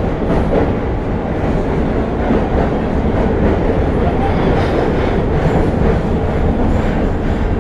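New York City subway train running at an underground platform: a loud, steady rumble of wheels on rails, even throughout.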